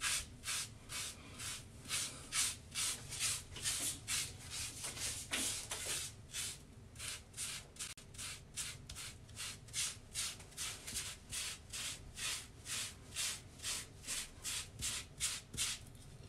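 A bristle hairbrush scrubbed back and forth over short, shampoo-lathered wet hair: a steady rhythmic rubbing of about three strokes a second.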